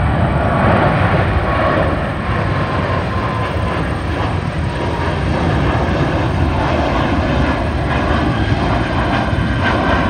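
Boeing 777-300ER's twin GE90-115B turbofans at climb thrust just after takeoff: a loud, steady jet roar with a faint whine running through it.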